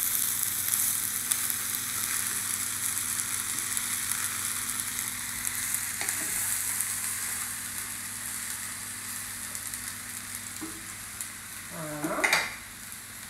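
Vegetables (potatoes, asparagus, peas, broad beans and spinach) sizzling in a hot frying pan as they are stirred and tossed with two wooden spoons; the sizzle eases gradually. A short pitched sound stands out near the end.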